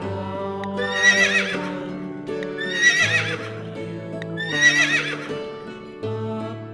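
Horse whinnying three times, each a high, wavering call lasting about a second, over background music.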